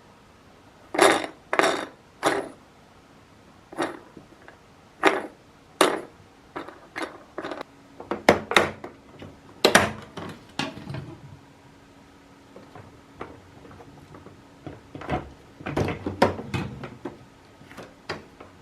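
Hard objects being handled and set down: a string of irregular knocks and clicks, some in quick clusters, over a faint steady hum.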